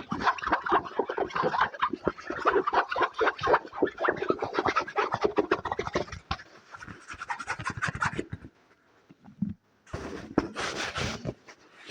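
Fast scratching and tapping on an object as an ASMR trigger: a dense run of rapid strokes for about six seconds, then quicker, lighter strokes. A brief pause with a single soft thud follows, then a short burst of scratching near the end.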